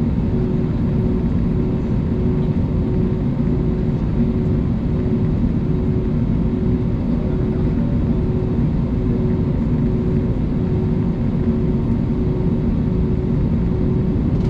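Steady cabin drone of an Airbus A220's Pratt & Whitney PW1500G geared turbofans at idle while the aircraft waits on the taxiway, heard from inside the cabin. A deep, even rumble runs under a low hum that pulses evenly.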